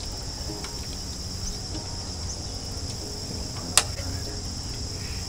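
Crickets chirring steadily in the background, with one sharp snap about four seconds in.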